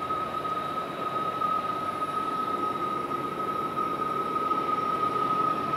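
Train climbing a grade toward the siding, its locomotives a steady rumble under a steady high-pitched tone.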